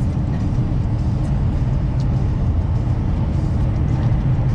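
Steady low drone of a diesel truck's engine and tyre noise, heard from inside the cab while driving.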